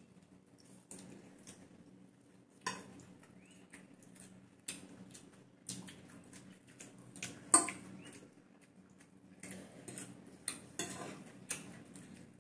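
Metal forks clinking and scraping on ceramic plates as people eat noodles, in irregular scattered clicks, the sharpest clink a little past halfway.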